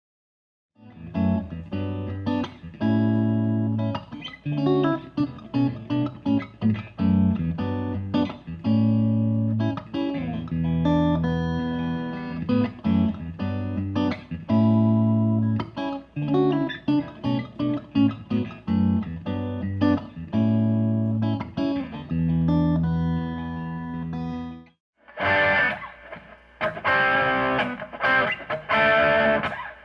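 Studebaker Sky Hawk Pro SSS electric guitar, with three EMG SA active single-coil pickups, played as a demo: a run of riffs and chords on a clean tone. After a short break near the end it comes back with a brighter, rougher tone.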